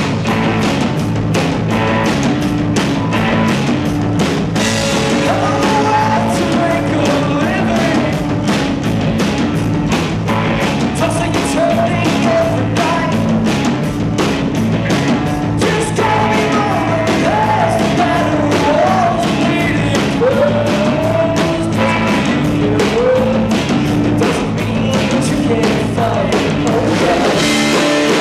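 Live rock band playing loud: electric guitars, bass guitar and a drum kit keeping a steady beat.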